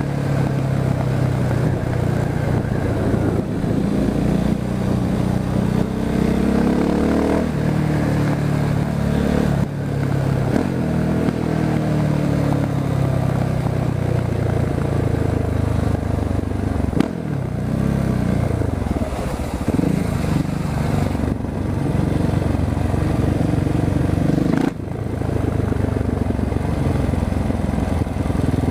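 Husqvarna 701 Supermoto's single-cylinder four-stroke engine under way, its pitch rising and falling again and again as the bike accelerates and slows. The sound briefly drops twice, about 17 and 25 seconds in.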